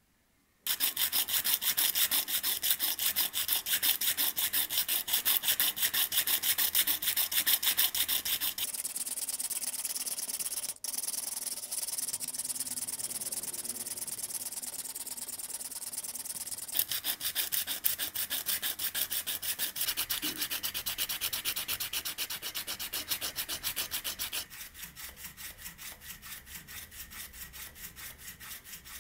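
Sandpaper rubbed by hand back and forth over the steel parts of a butcher's hatchet, a fast run of rasping strokes. It turns steadier and duller for a while in the middle, then comes back as distinct strokes that grow quieter near the end.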